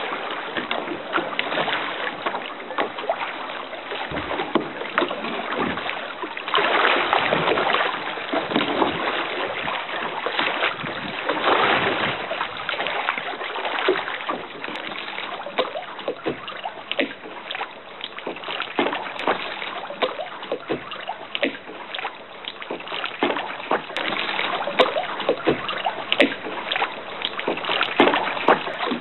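Kayak paddling through choppy lake water: water splashing and slapping against the hull, with many short, sharp slaps over a steady wash.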